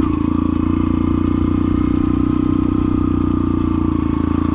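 Yamaha XTZ 125's single-cylinder four-stroke engine running at a steady speed through an aftermarket Fortuna F1 mini trioval exhaust while the bike is ridden.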